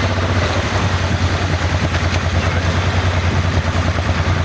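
Honda Transalp XL700V's V-twin engine idling steadily, loud and unchanging in pitch.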